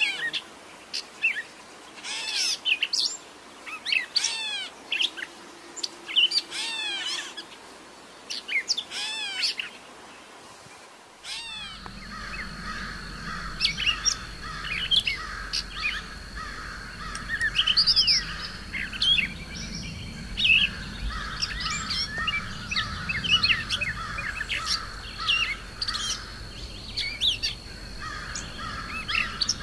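Gray catbird singing: a run of short, varied, squeaky phrases separated by brief pauses. About eleven seconds in the sound changes to a busier mix of bird chirps over a low steady hum and a thin steady high tone.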